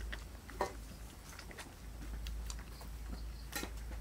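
Puppies suckling from their mother, making scattered small wet smacking clicks over a low steady hum.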